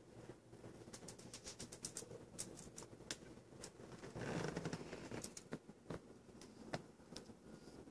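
Faint scattered clicks and ticks, irregular and several a second at times, with a soft rustling swell about four seconds in.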